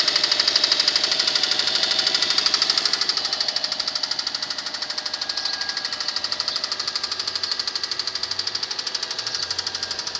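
Cold Subaru EJ25 2.5-litre turbo flat-four running with a rapid, even, metallic knock. The knocking is a little louder for the first three seconds, then eases slightly.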